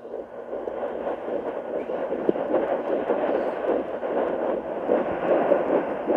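Simply Tots Baby Sound C fetal doppler's speaker playing a whooshing, fluttering pulse as the probe picks up an 11-week baby's heartbeat, growing louder over the first couple of seconds as the probe finds the spot.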